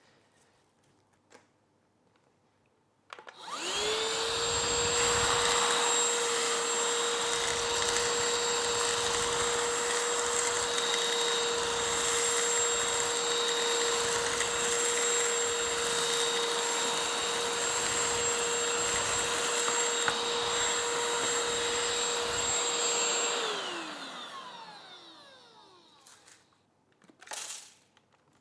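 Shark CH951 UltraCyclone Pet Pro+ cordless hand vacuum switched on about three seconds in, spinning up to a steady high whine while it sucks up cornflakes. After about twenty seconds it is switched off and the motor winds down with a falling pitch.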